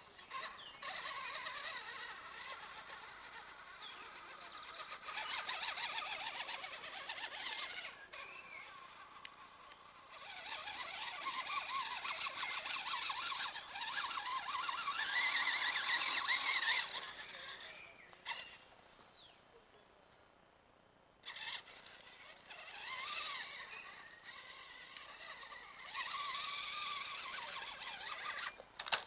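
Traxxas 1/16 Summit RC truck's electric motor and geared drivetrain whining in stop-start bursts under throttle as it climbs a dirt slope, going quiet for a few seconds about two-thirds of the way through.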